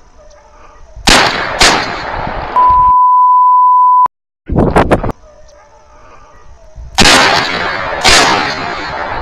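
Two shotgun blasts about a second in, half a second apart, each with a long rolling echo, with hounds baying faintly before them. A steady bleep tone follows, covering a word. Then, with the hounds faint again, two more shotgun blasts come about a second apart near the end.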